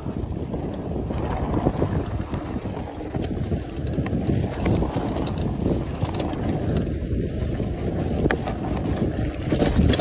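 Wind buffeting the microphone in a steady low rumble, with the frequent small knocks and rattles of a mountain bike rolling over a dirt road.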